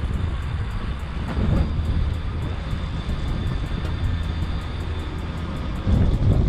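Steady low wind rumble buffeting the microphone, with rolling noise from an electric bicycle being ridden.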